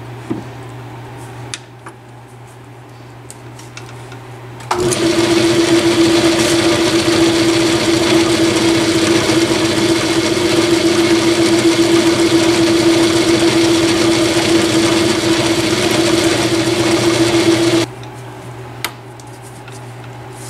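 Craftsman/Atlas 618 metal lathe running with a steady low hum. From about five seconds in to about eighteen seconds in it gets much louder, with a strong steady tone, as a drill held in the tailstock chuck bores into a spacer; then it drops back to the hum.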